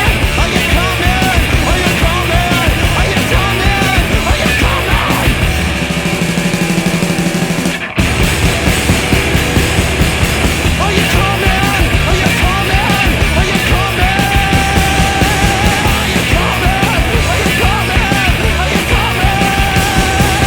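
Loud punk rock song playing as a soundtrack. About six seconds in it settles on a held, steady stretch, cuts out for an instant near eight seconds, then the music comes straight back in.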